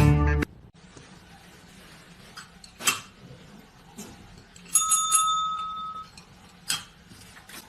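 A single bell-like ding about five seconds in, ringing for about a second, amid a quiet stretch with a few sharp clicks; music cuts off just at the start.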